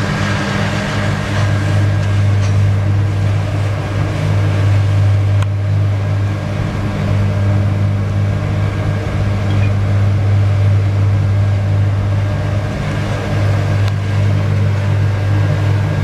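Slipform concrete paver running as it lays the slab, a loud, steady low drone that holds an even pitch throughout.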